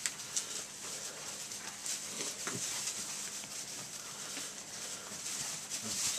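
A litter of six-week-old retriever puppies scuffling and tugging at a toy in wood shavings: a steady rustle of shavings with small clicks and the odd faint puppy growl.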